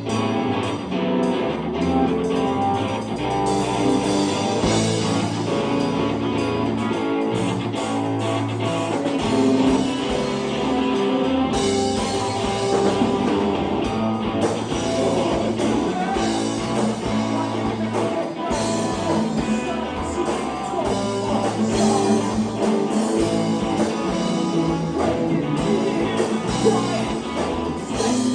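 Live band playing guitar-led rock music.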